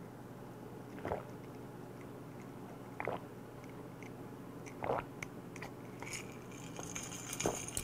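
A person drinking from a glass mug in long swallows, with three audible gulps about two seconds apart.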